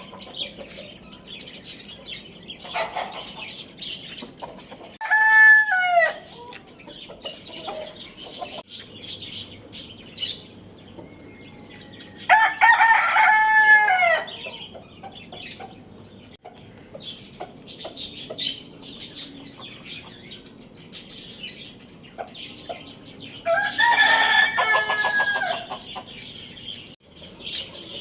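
Rooster crowing three times, about seven to eleven seconds apart, each crow a long call that drops in pitch at the end, with clucking and short chirps between the crows.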